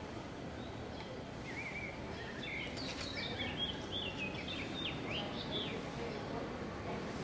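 Birds chirping, a run of quick high chirps and short sliding calls through the middle, over steady background noise.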